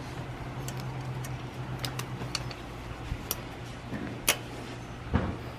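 Scattered small clicks and taps of a rubber band and thin plastic flagpole being handled against a bicycle frame tube as the band is wrapped to hold the pole, with a sharper click a little past four seconds in and a duller knock near the end. A steady low hum runs underneath.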